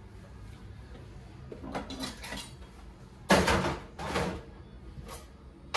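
Kitchen handling noises at the counter: a few short bursts of clatter and rustle, the loudest about three and a half seconds in, over a low steady room hum.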